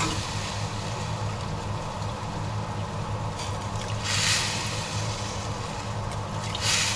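A steady low hum from the stove area, with broth simmering in a large pot. Twice, about four seconds in and again near the end, a ladleful of broth is poured splashing through a mesh strainer back into the pot while the scum is skimmed off.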